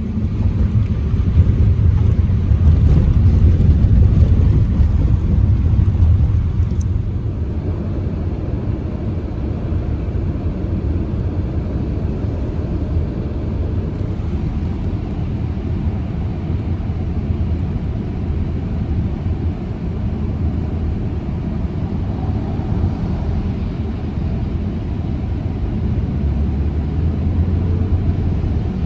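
A car driving: a steady low road and engine rumble, louder for the first six seconds or so, then even.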